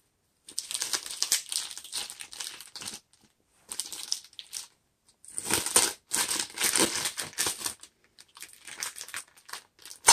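Vacuum-sealed plastic food packaging crinkling as a serrated knife slits it open and hands pull it apart, in four or so bursts with short pauses between.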